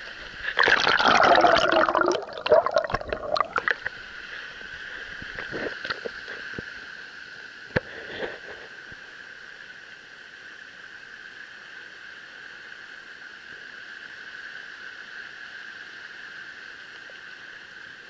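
A brown trout released into a rushing mountain stream: about three seconds of splashing and gurgling as it is let go from the hands, then the creek's steady rush with a few light knocks.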